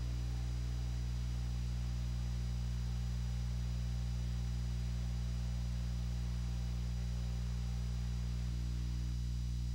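Steady low electrical hum with a buzz of overtones and a faint high whine, unchanging throughout: mains hum on the audio track of a VHS tape playing its copyright warning screen.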